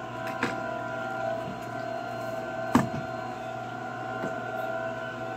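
A steady hum of several held tones, with a light click about half a second in and a sharper click a little under three seconds in.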